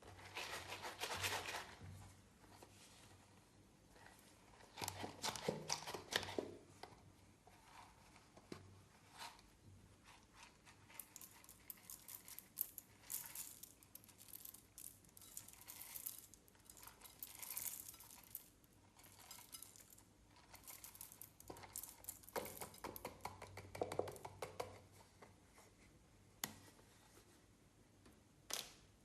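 Clear slime being worked and mixed by hand, giving faint, irregular bursts of sticky crackling and tearing noise.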